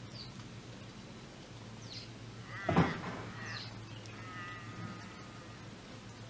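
Outdoor birds calling: thin, high chirps on and off, and one short, much louder call a little before the middle.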